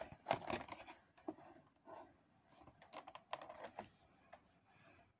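A sealed cardboard trading-card box being turned over and handled: faint clusters of light clicks, taps and rustles, the first in the opening second and another about three seconds in.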